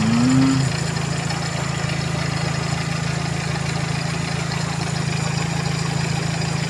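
Toyota 2E four-cylinder engine idling steadily, with the air-conditioning compressor engaged.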